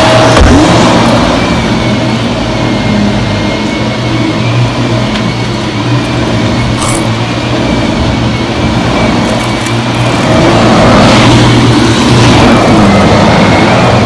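Upright bagless vacuum cleaner running: a loud, steady motor drone with a thin whine on top, getting a little louder near the end.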